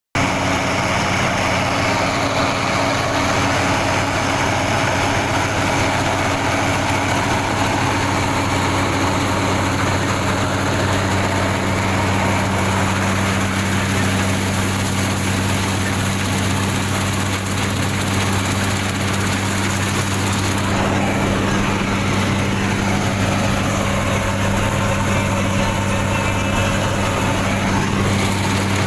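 Fiatagri combine harvester running steadily, its engine giving a constant low drone under a dense mechanical noise.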